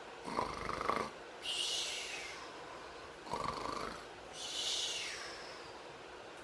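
A person snoring: two breaths, each a snore of about a second on the in-breath followed by a longer breathy out-breath. The second snore comes about three seconds in.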